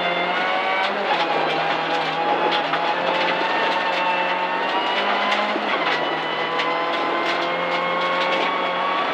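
Rally car's engine heard from inside the cabin, pulling hard on a gravel stage, its pitch slowly climbing, with gravel and stones pinging against the underside throughout.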